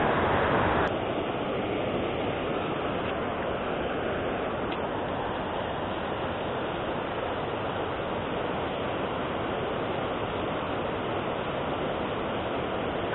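Steady rushing of water pouring over a river weir, a little louder for the first second, with a single sharp click about a second in.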